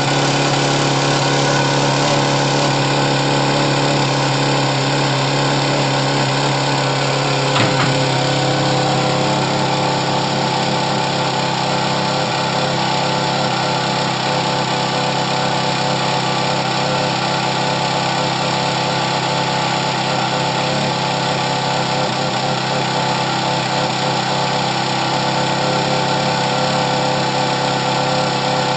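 Ferrari 430 Scuderia's V8 idling steadily, heard from behind at the exhausts. There is a single short knock about eight seconds in.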